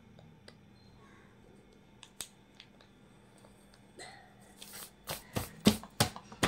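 Faint pencil scratching on notebook paper, then from about four and a half seconds in several quick, loud rustling swipes as a hand brushes across the paper page.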